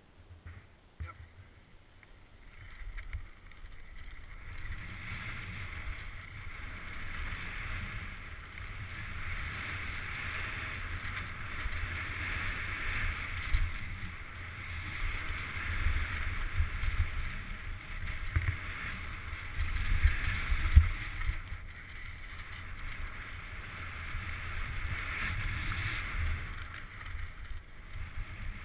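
Mountain bike rolling fast down a packed-dirt trail: tyre noise on dirt and gravel with wind buffeting the helmet-mounted microphone, and occasional knocks over bumps. It starts quiet and grows louder after a few seconds as speed builds, easing briefly about three-quarters of the way through.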